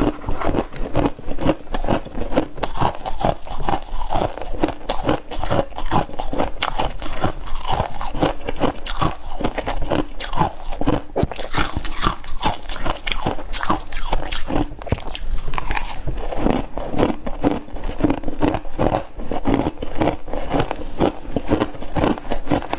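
Freezer frost and ice being bitten and chewed in the mouth, with dense, irregular crunching that goes on without a break.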